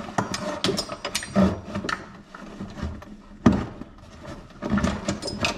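Handling noise of a rubberised storage bag and its clip-in hooks being worked into a side-by-side's rear panel: rustling with scattered clicks and knocks, the sharpest knock about three and a half seconds in.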